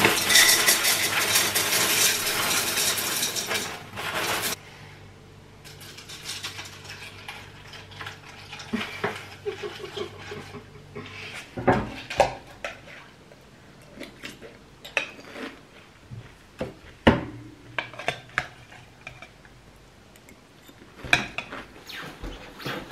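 Frosties cereal poured into a mixing bowl, a dense rattling rush that stops about four and a half seconds in. Milk is then poured in, and a spoon clinks and scrapes against the bowl during eating, with a few sharper knocks.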